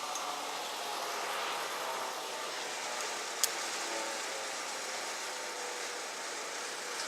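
An engine running steadily, with one sharp click about three and a half seconds in.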